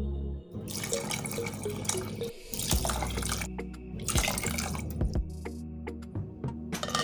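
Water splashing in several short bursts over background music.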